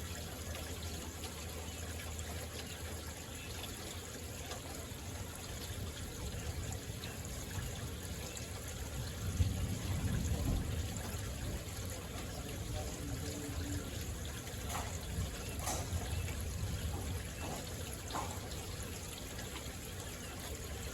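Heavy rain falling and running steadily. A low rumble of thunder swells about halfway through and then fades back.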